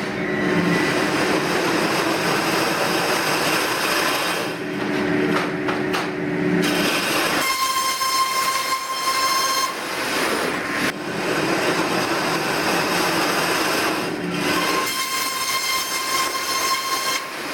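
Circular sawmill running through timber. The sound shifts between a dense, low, grinding cutting noise and a high, ringing whine: it turns to the whine about seven seconds in and back to the lower noise near the end.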